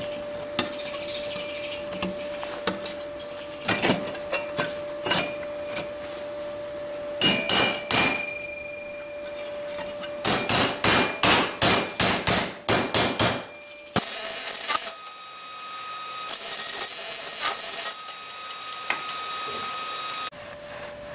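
Hammer blows on steel as a cut steel disc is knocked into a rolled steel band to form a railway wagon wheel, each strike ringing. The blows come in short groups, then a quick run of about three a second a little past halfway, followed by a few seconds of steady hiss.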